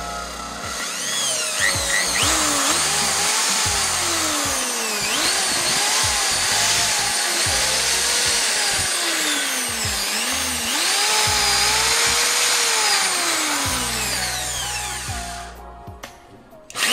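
Old corded 2-in-1 impact drill running freely after a full service (cleaning, gearbox lubrication, a repaired brush), its motor whine repeatedly rising and falling as the trigger is squeezed and eased. Near the end it winds down and briefly stops.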